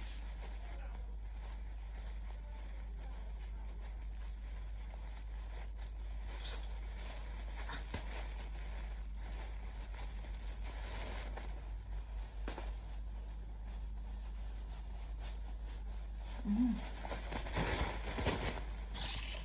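Fabric and its packaging being handled: faint rustling and crinkling, with a few short sharp sounds, over a steady low hum.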